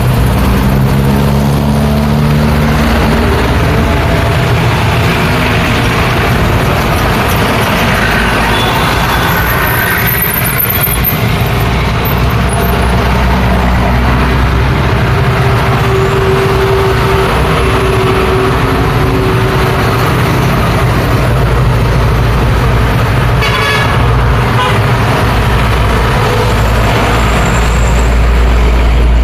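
Heavy road traffic passing close by: the engines of trucks, buses, cars and motorcycles make a steady loud rumble, and a vehicle horn sounds briefly around the middle.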